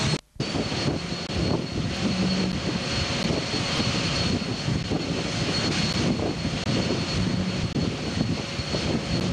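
Wind buffeting the microphone on an open ship's deck at sea, mixed with the rush of the sea between two ships steaming side by side during a replenishment at sea. Steady throughout, starting just after a brief dropout.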